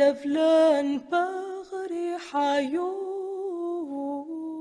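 A woman's voice singing an Aramaic lullaby unaccompanied: a slow line of held notes that slide from pitch to pitch, with a long held note near the end.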